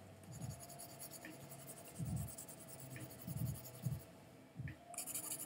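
Red colored pencil scratching back and forth on paper in soft, uneven strokes about one a second, laid on with light pressure and alternating direction.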